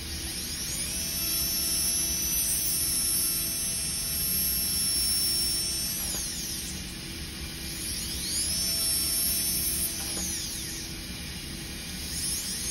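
Straight dental handpiece with a bur whining as it spins up to speed and runs steadily while trimming a polycarbonate crown form. It winds down about six seconds in, spins up again about two seconds later, stops near ten seconds, and starts once more near the end.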